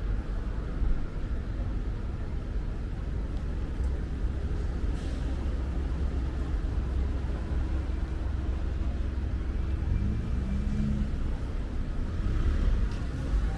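Road traffic on a busy city street: a steady low rumble of passing cars and buses, with one engine rising in pitch about ten seconds in.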